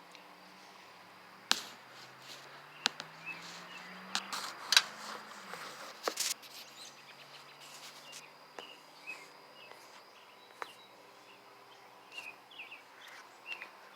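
Outdoor ambience with a few sharp clicks and knocks, a faint low hum slowly rising in pitch over the first few seconds, and small birds chirping near the end.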